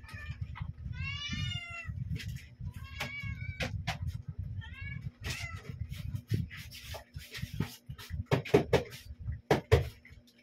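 Several cats meowing one after another at feeding time, a meow every second or two, with a few sharp clattering knocks near the end.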